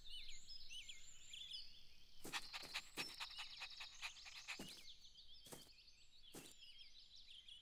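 Faint cartoon garden ambience of chirping birds, with a puppy's short panting breaths: a quick run of them about two seconds in, then single ones spaced about a second apart.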